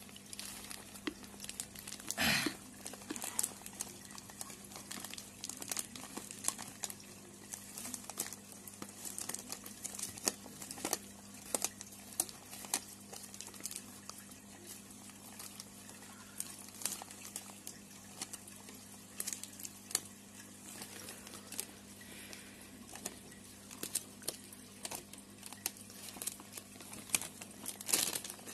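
Thin plastic bag crinkling as fingers work at its tied neck and open it, in many small irregular crackles, with a louder rustle about two seconds in and another near the end. A faint steady low hum runs underneath.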